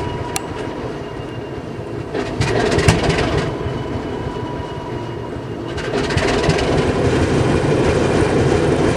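Alco S4 diesel switcher's turbocharged six-cylinder engine running cold just after being fired up. It grows louder about six seconds in, and there is a sharp knock about three seconds in.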